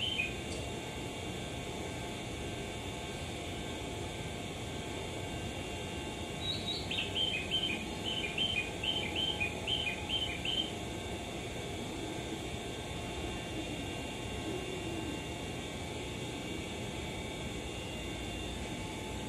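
Steady hum of a railway station platform. About six seconds in, a repeated two-note chirp, high then lower, comes about two and a half times a second for some four seconds; a short run of the same is heard right at the start.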